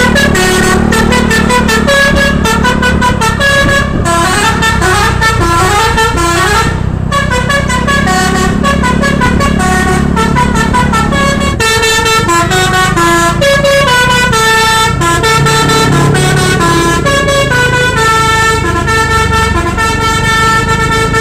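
Bus telolet basuri horn playing a fast melody of short stepping notes without a break, over the rumble of the bus engine.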